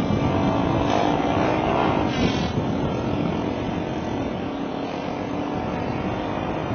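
A vehicle driving along: steady engine hum under a wash of road noise.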